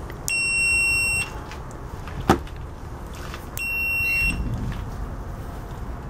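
Fluke 87 multimeter's beeper sounding twice: a steady high beep of about a second, then a shorter one about three seconds later, with a sharp click between them.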